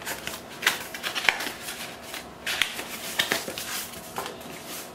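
Cardboard packaging and its contents being handled: rustling and scraping, with several short, sharp scuffs as items are slid out of the box.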